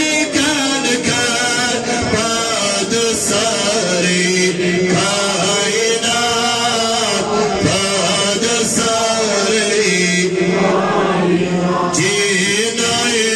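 Man chanting a naat, a devotional poem in praise of the Prophet, in long held notes that bend and waver, with a short pause about ten seconds in.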